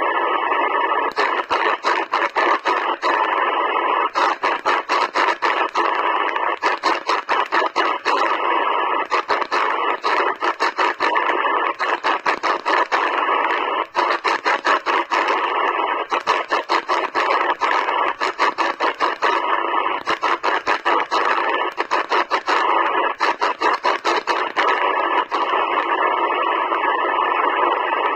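Sihuadon D-808 shortwave receiver in upper-sideband mode on the 15-metre band, giving a steady loud hiss of band noise through its speaker, broken by frequent short crackles and dropouts as the dial is tuned up the band.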